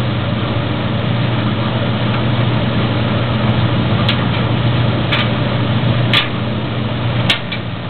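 Maytag DG608 gas dryer running with its burner cycled off after heating up: a steady motor and drum hum, with four sharp clicks about a second apart in the second half. The owner cannot explain the clicking and wonders whether it comes from the gas valve's coils.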